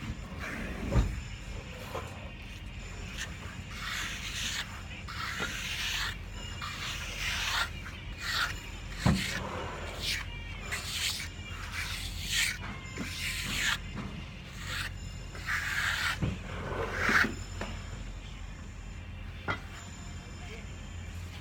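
A hand applicator rubbing and dabbing thick textured primer onto a flat wall panel: a series of short, scratchy strokes at an uneven pace, with a few light knocks.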